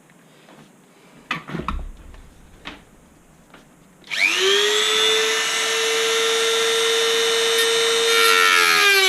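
A few handling knocks, then about four seconds in a small high-speed electric rotary tool spins up to a steady high whine, ready to cut the opening in the plastic air box cover; its pitch drops slightly near the end.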